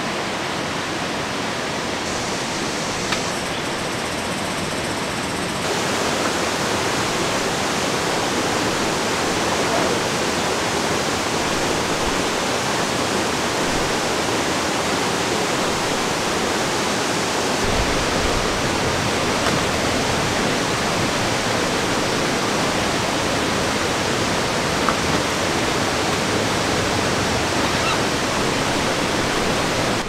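Mountain stream rushing over rocks, a steady hiss of flowing water that grows a little louder about six seconds in.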